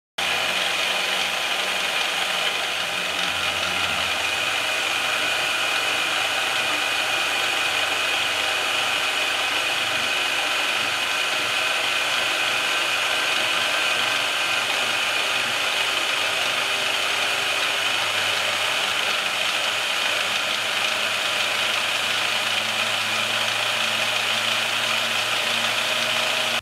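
Bauer portable band saw running steadily as its blade cuts through a small piece of steel, with a steady high whine over the blade's hiss.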